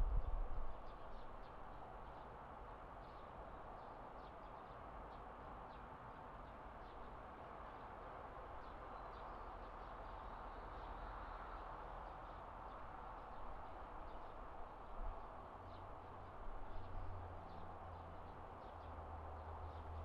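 Outdoor evening ambience: faint, scattered bird chirps over a steady distant hum. A low rumble is there briefly at the start and again through the last few seconds.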